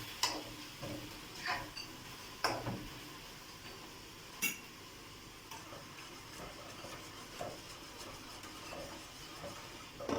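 Spoon stirring minced meat and onions in a cooking pan, knocking and scraping against the pan several times, the sharpest knocks in the first few seconds.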